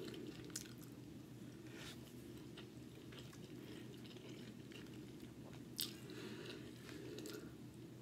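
A person chewing a mouthful of soft white rice and baked salmon close to the microphone, with faint wet mouth sounds and a few light clicks over a low steady hum; the sharpest click comes a little past the middle.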